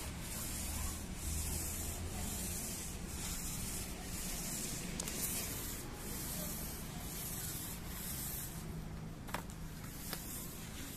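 Paint roller on an extension pole rolling floor paint back and forth over a rough concrete floor: a steady rubbing hiss in repeated strokes.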